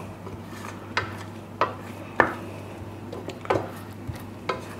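A utensil clinking and scraping against a pan while the caramelised almond topping of milk, butter, sugar and sliced almonds is stirred on the heat. There are about five sharp clinks at uneven intervals over a low steady hum.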